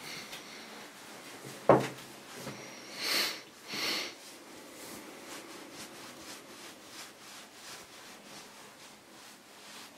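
A terry towel rustles softly as it is rubbed over a freshly bathed wet cat. A single sharp knock comes about two seconds in, and two short breathy puffs follow about a second later.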